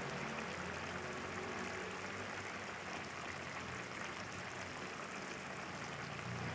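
Chilli paste frying in oil in a pan, giving a steady sizzling hiss.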